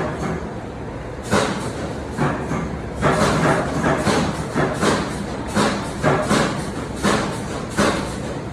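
Wire butt welding machine being operated: a run of irregular sharp clunks and knocks, one to three a second, over a steady low hum.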